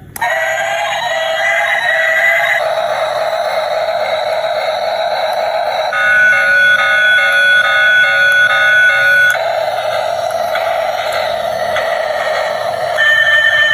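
Battery-powered toy train switched on, playing electronic sound effects and a tune through its small tinny speaker. The pattern changes in sections every few seconds.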